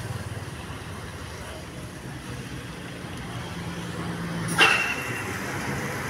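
Bus engine running steadily with a low hum, with one sharp burst and a brief high tone about four and a half seconds in.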